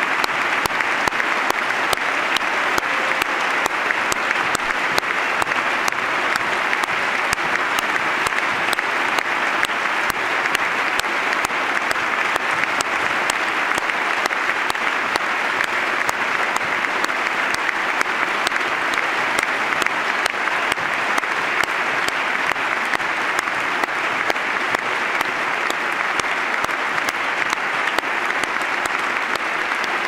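A large audience applauding steadily, the dense clapping of many hands holding at an even level throughout a long standing ovation.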